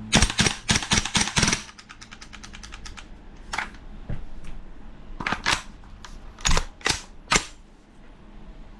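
Handling of a King Arms BlackRain 9mm gas-blowback airsoft carbine: a quick run of loud metallic clicks and clacks, then a stretch of fainter rapid ticking, then several single sharp clacks spaced out through the rest.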